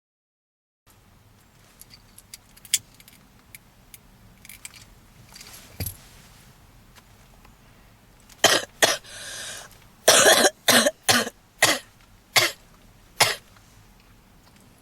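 A woman's smoker's cough. A few faint clicks come first, then two coughs, a long wheezing breath in, and a run of about six loud coughs.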